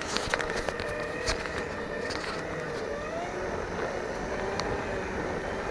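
Segway electric drive motors whining, the pitch sliding up and down as the rider speeds up and slows, over a steady rushing noise. A few sharp clicks and knocks come in the first couple of seconds.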